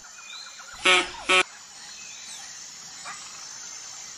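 Mallard duck quacking twice in quick succession about a second in, two short, loud, rasping quacks, followed by steady background noise with a few faint high chirps.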